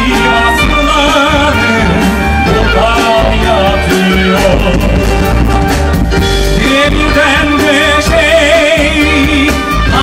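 Live music: a violin carries the melody with wavering vibrato over instrumental accompaniment and a steady bass line.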